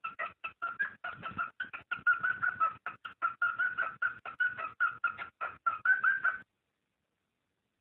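Cockatiel mating call: a rapid series of short chirping notes, about five or six a second, cut off suddenly near the end.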